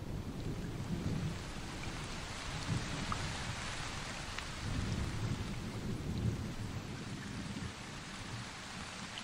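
Thunderstorm: low rolling thunder that rumbles in slow swells over a steady hiss of rain.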